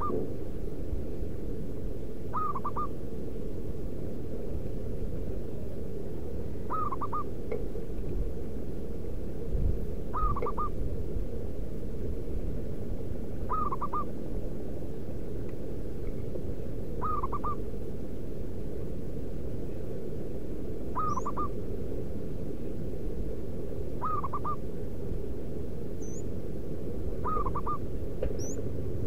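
Zebra dove cooing: a short run of three or four quick notes repeated about every three and a half seconds, nine times, over a steady low background noise. A few faint high chirps come in near the end.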